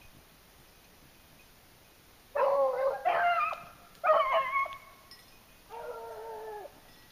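Beagles baying on a cottontail rabbit's trail: four drawn-out notes starting a couple of seconds in, the last one fainter.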